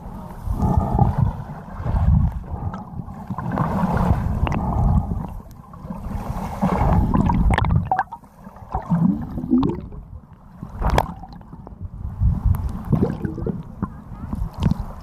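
Lake water heard through an underwater camera's waterproof housing: a muffled, uneven rumble of moving water in surges, with some bubbling around nine to ten seconds in and a sharp click a little after.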